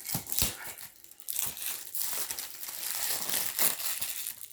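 Plastic wrapping crinkling and crackling in irregular bursts as it is handled and pulled at.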